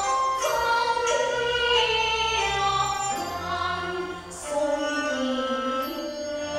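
Teochew opera singing: two performers singing a duet in long, gliding phrases over instrumental accompaniment.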